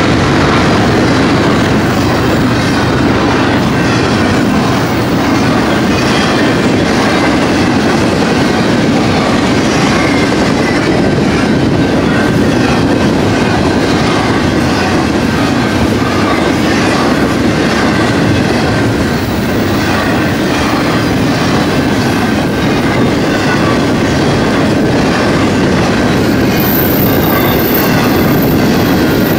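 Double-stack intermodal well cars of a BNSF freight train rolling past: a loud, steady rumble and rattle of steel wheels on the rails, with repeated clicks as the wheels cross the rail joints.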